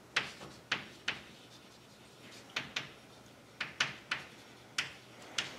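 Chalk writing on a blackboard: about ten short, sharp taps of the chalk against the board, spaced irregularly, some in quick pairs.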